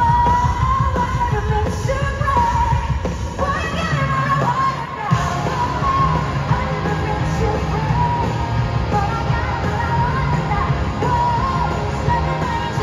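Live rock band playing at full volume with a woman singing the lead vocal, heard from the audience in a large stadium.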